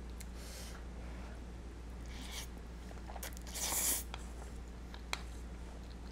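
A person slurping spaghetti noodles in cream sauce: two short slurps early on and one longer, louder slurp about three and a half seconds in, with a few small clicks between.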